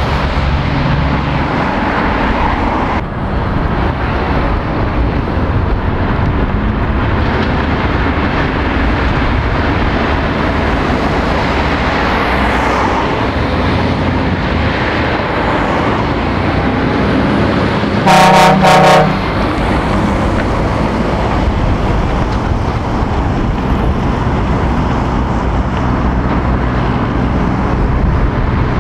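Lorries, vans and cars driving round a roundabout, engines running and tyres on the road surface, with two short horn toots from a passing vehicle about eighteen seconds in.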